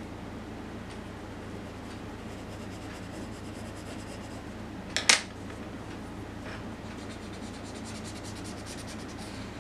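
Graphite pencil shading on drawing paper: runs of fine, quick scratching strokes, with one short, louder double scrape about five seconds in, over a steady low hum.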